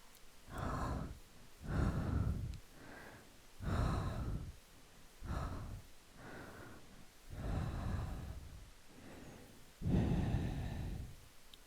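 Close-miked slow breathing for ASMR: unhurried 'haa' and 'fuu' breaths of air into the microphone, about eight in all, some louder and some softer.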